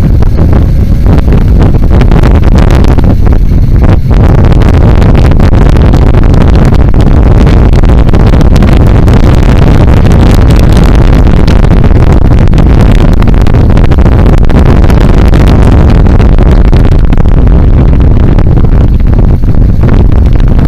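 BMW G 650 GS single-cylinder motorcycle riding along, its engine mixed with a steady, very loud rush of wind and road noise on the onboard microphone.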